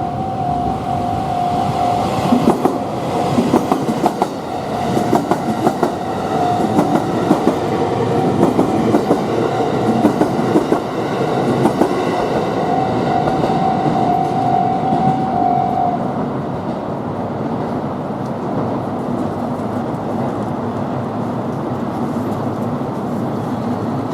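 Kuroshio limited express train passing over a level crossing, its wheels clacking over the rail joints from about 2 to 12 seconds in. The crossing's warning signal rings a steady tone until about two-thirds of the way through, then stops, leaving the train's steady running rumble.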